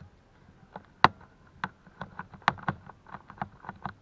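Phillips screwdriver working the screws of a laptop's plastic bottom cover: a run of small, irregular clicks and ticks, with a sharper click about a second in.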